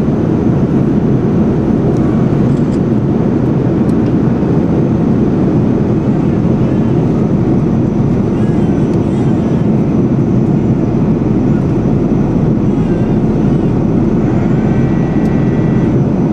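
Steady, loud airliner cabin noise in flight: the deep, even rush of the jet engines and airflow heard from inside the passenger cabin.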